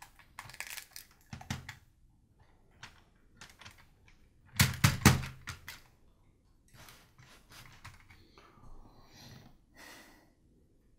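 Hard plastic clicks and knocks of 1968 LEGO train set 119 parts being handled and set on the track, with a cluster of louder knocks about halfway through. No motor is heard running; its batteries are nearly flat.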